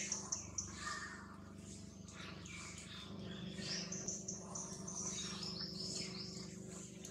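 Small birds chirping, high and thin, with a quick run of chirps stepping down in pitch midway. A steady low hum sits underneath.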